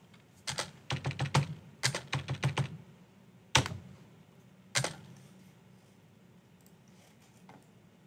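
Typing on a computer keyboard: a quick run of keystrokes over the first few seconds, then two louder single clicks about a second apart.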